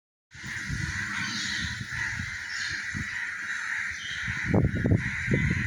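A large flock of birds calling at once in a dense, steady chorus, with harsh caw-like calls among them, over a low rumble that gets louder about four and a half seconds in.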